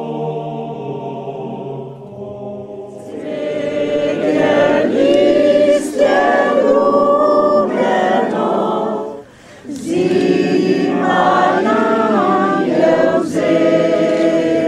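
A group of men and women singing a Slovenian folk song together, unaccompanied. The voices swell about three seconds in and break briefly for a breath about nine seconds in.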